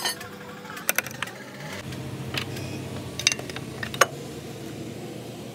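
Irregular metallic clinks and clicks of a ratchet and hand tools against engine-bay parts, about seven in all, with a low steady hum coming in about two seconds in.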